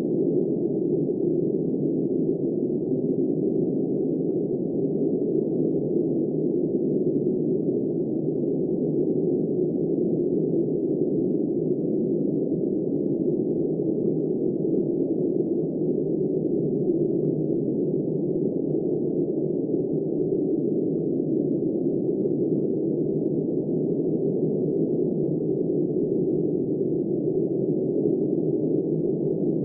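Steady, dull wind-like rushing noise, all low and muffled, with no gusts, no rain patter and no changes.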